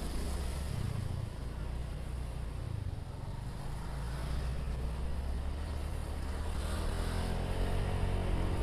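Motor scooter being ridden, its engine running under a steady low rumble of wind on the helmet-camera microphone. Near the end a stacked engine note climbs in pitch as it gets louder.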